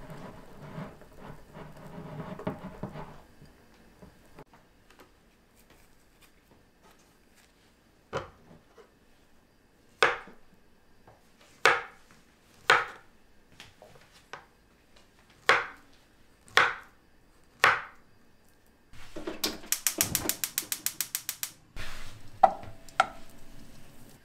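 A wire whisk stirring batter in a glass bowl. Then a kitchen knife chops through a banana onto a wooden cutting board, seven separate cuts. Then a gas stove's igniter clicks rapidly for about two seconds, followed by a sharp clunk.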